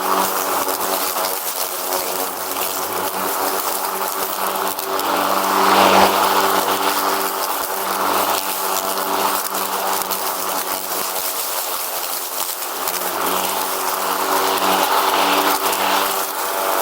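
Riding lawn mower running steadily: an even engine drone, swelling briefly about six seconds in.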